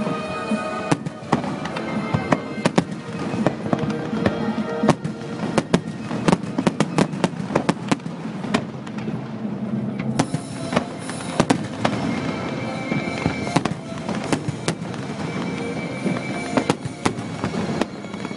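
Fireworks display: a steady stream of sharp bangs from bursting shells, coming thickest about halfway through, with music playing alongside.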